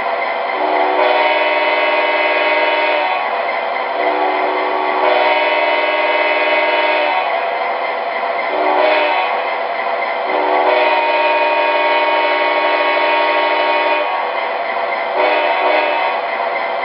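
The onboard sound system of an MTH Premier P40 Genesis diesel model plays a multi-note air horn in the grade-crossing pattern: two long blasts, a short one, and a long one. Two short toots follow near the end, all over the model's steady diesel engine sound.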